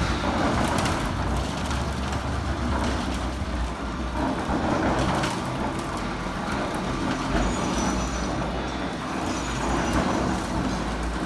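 Steady low rumble of a vehicle in motion, with road or wheel noise.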